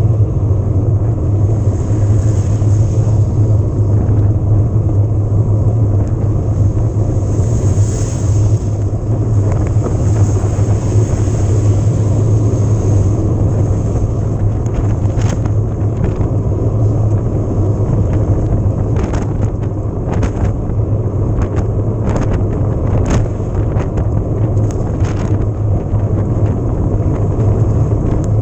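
Riding noise from an e-mountain bike on the move: a steady low rumble of wind and tyres on the camera microphone. In the second half comes a run of short, sharp clicks and rattles.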